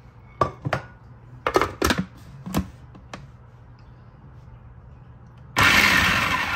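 Several sharp clicks and knocks, then about five and a half seconds in an electric food chopper's motor runs in a short pulse, coarsely chopping green chilies, onion, coriander and ginger. It is run in brief bursts rather than continuously so the mix stays coarse, as if chopped by hand.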